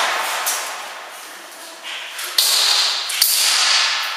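Airsoft guns firing in a concrete underground garage: a few sharp cracks, the two sharpest about two and a half and three and a quarter seconds in, each trailing a long echo that fades away.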